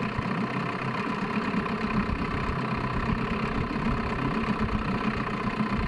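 Boat engine idling steadily, a low even hum.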